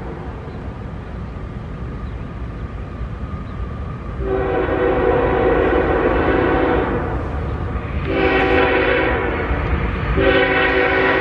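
Diesel freight locomotive's air horn sounding as the train approaches a grade crossing: a long blast about four seconds in, a shorter one about eight seconds in, and another starting about ten seconds in and still going at the end, over the low rumble of the approaching train.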